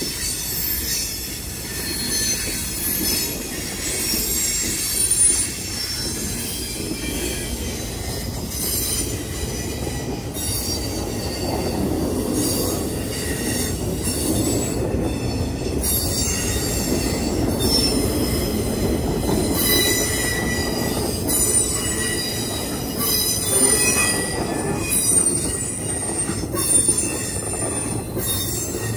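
Intermodal freight cars loaded with containers and trailers rolling past, steel wheels rumbling on the rail, with high-pitched wheel squeal coming and going and scattered clacks.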